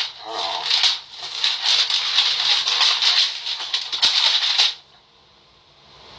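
Sheets of paper rustling and crinkling as they are handled and flipped through; the rustling stops about five seconds in.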